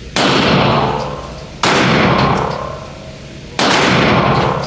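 Three pistol shots from a Glock 32 in .357 SIG, the second about a second and a half after the first and the third about two seconds later, each with a long ringing tail.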